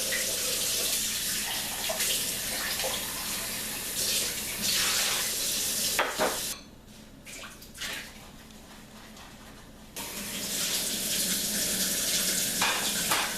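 Water running from a tap into a sink. It shuts off about six and a half seconds in, a few small clicks follow, and it runs again from about ten seconds in.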